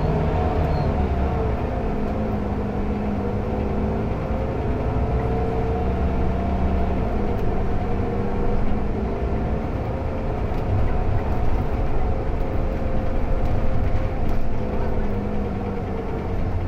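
Mercedes-Benz OC500LE city bus's engine and ZF automatic gearbox running under way, heard from the rear seats inside the bus. The drone's pitch drifts slowly as the bus changes speed.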